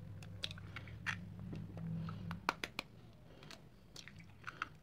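Chicken eggs being cracked open by hand over a stainless steel bowl: a scatter of faint, sharp shell cracks and ticks, over a low steady hum.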